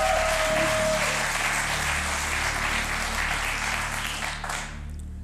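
Studio audience applauding, the clapping dying away sharply about four and a half seconds in, over a quiet music bed.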